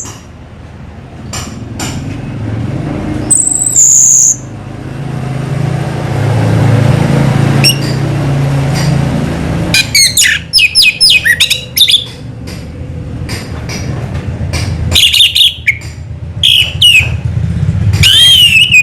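Orange-headed thrush (anis merah) singing: a high whistled note a few seconds in, then from about halfway a run of quick, varied twittering phrases, over a low background rumble.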